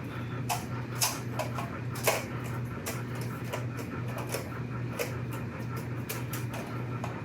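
Irregular light clicks and taps of parts and tools being handled while an engine is assembled, over a steady low hum.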